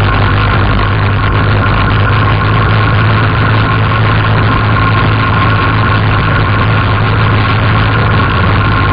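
Quad bike (ATV) engine running loudly and steadily at an even speed, with no revving up or down.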